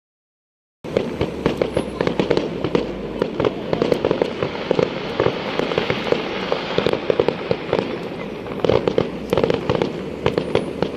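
A fireworks display going off in a dense, continuous stream of rapid crackling pops and bangs. It starts abruptly after about a second of silence.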